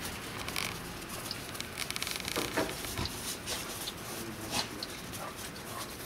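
Two dogs, a Labradoodle and a Bouvier des Flandres, playing in snow: irregular scuffling and crunching with scattered small clicks, and a few brief louder rustles near the middle.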